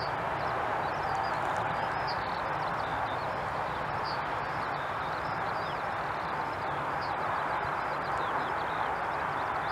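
Jet engines of an Airbus A320-family airliner running steadily with a faint whine as it rolls along the runway. Small birds chirp repeatedly over the engine noise.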